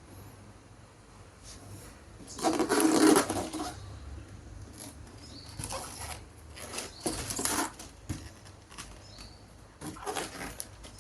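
Several bursts of rustling and handling noise, the loudest a little over two seconds in, typical of packaging being opened and handled.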